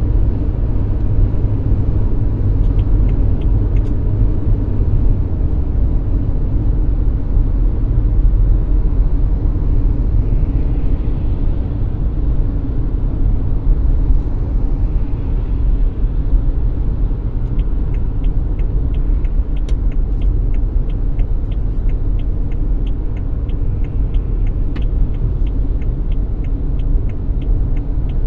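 Steady low rumble of a car's engine and tyres heard from inside the cabin while driving at highway speed. Faint, irregular light ticks join in during the second half.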